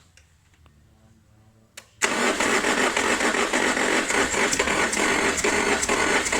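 Car engine is started about two seconds in, followed by a loud, rapid metallic clatter that runs on. The mechanics put the noise down to the flywheel being hit: the starter's bendix, which they suspect does not disengage in time.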